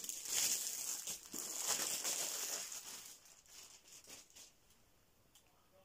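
A plastic bag crinkling and rustling as it is opened and handled. The sound is loudest in the first three seconds, then fades out with a few light taps by about four and a half seconds in.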